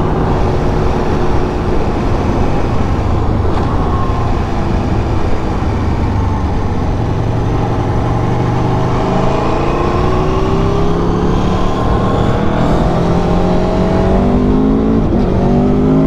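Aprilia Tuono V4 1100 Factory's V4 engine pulling hard under acceleration, its pitch climbing steadily through the second half. Near the end it drops sharply and climbs again as the quick shifter snaps up a gear. A steady rush of wind sits under it throughout.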